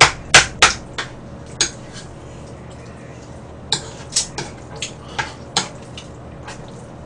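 Metal spoon clinking and scraping against a plate while scooping up jajangmyeon sauce. There is a quick run of about four loud clinks at the start, then scattered lighter clinks a few seconds later.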